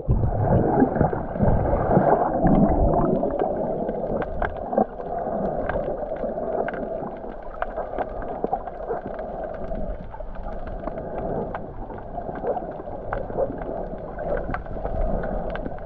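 Muffled underwater noise from a snorkeler's camera held below the surface: a steady dull hiss of moving water, sprinkled with many small sharp crackling clicks.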